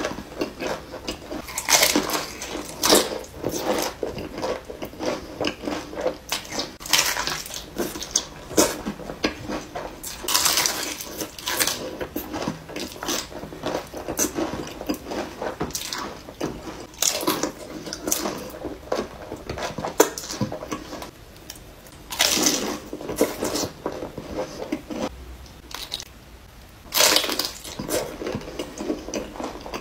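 Close-miked eating: bites into a fried taco shell filled with cheesy Buldak noodles and wet, squishy chewing, with several louder bites a few seconds apart.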